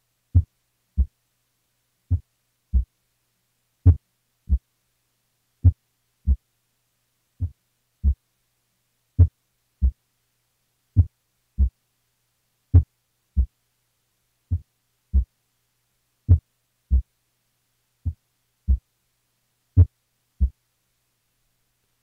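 Heart sounds recorded at the cardiac apex: slow lub-dub pairs, about one beat every 1.75 seconds (roughly 34 a minute). The first sound (S1) of each pair changes in loudness from beat to beat, the variable S1 of complete heart block.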